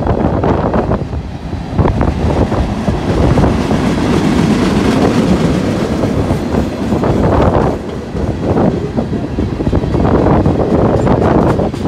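Freight train passing close by, a steady loud rumble with its wheels clicking over the rail joints.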